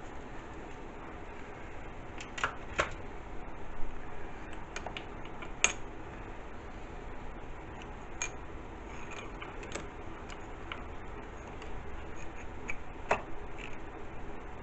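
Scattered sharp metallic clicks and light knocks of steel parallels and a workpiece being handled and set in a machine vise.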